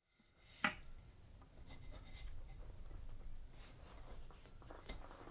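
2018 Wahoo Kickr smart trainer giving one sharp click about half a second in, then faint scattered ticks and rubbing. The click is the intermittent noise from the new trainer, which the owner suspects is something loose or a slipping bearing.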